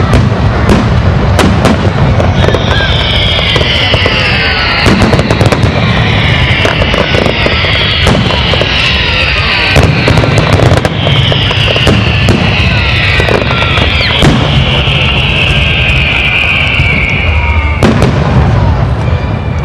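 Fireworks display: aerial shells bursting in a rapid, irregular run of bangs. Through most of it a series of high hissing whines slide down in pitch, one after another.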